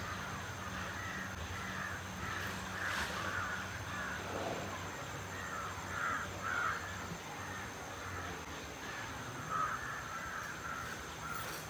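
Repeated bird calls, coming again and again at irregular intervals, over a steady low hum.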